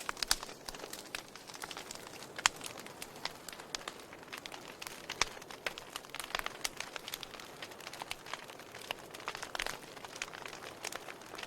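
Wood fire crackling in a fireplace: irregular sharp pops and snaps over a soft hiss of burning, with one loud pop about two and a half seconds in.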